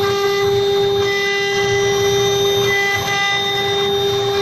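Two-spindle CNC router's spindle running with a steady high-pitched whine as its bit carves a relief into a board, with a rougher, uneven cutting noise underneath.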